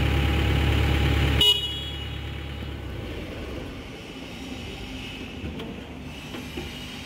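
Komatsu PC130F excavator's diesel engine running steadily, broken off abruptly about a second and a half in by a brief high tone, after which a fainter low engine hum fades away and leaves quieter, low-level sound.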